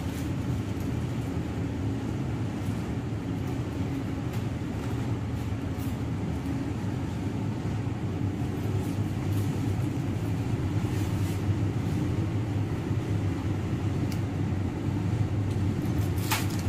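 Laminar air flow cabinet's blower running steadily, a constant low hum under an even rush of air. A brief handling noise comes near the end.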